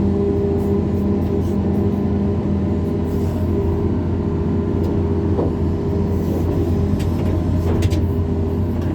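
Excavator's diesel engine running steadily with a constant low hum, and a few faint clicks or knocks.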